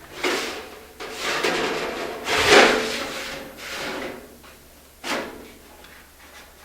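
Sheet copper being handled and bent while folding half-inch edges on roofing pans: a run of clattering, scraping metal knocks with a slight ring, the loudest about two and a half seconds in and a sharp one about five seconds in.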